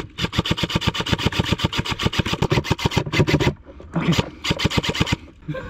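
Airsoft rifle firing on full auto at about a dozen shots a second: one long burst of about three and a half seconds, then after a short pause two brief bursts.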